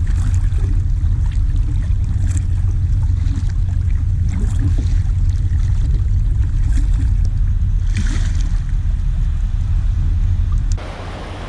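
Wind buffeting a small action camera's microphone on a kayak at sea: a loud, steady low rumble with a few faint splashes of water. Near the end it cuts abruptly to quieter, hissier surf and water noise.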